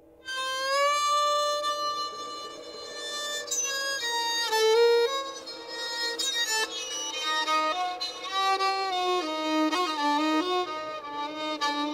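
Solo fiddle playing a melody, with some notes sliding into the next.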